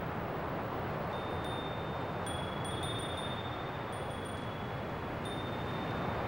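Small bells ringing high and thin several times at irregular intervals, each note lingering about a second, over a steady rush of wind and sea.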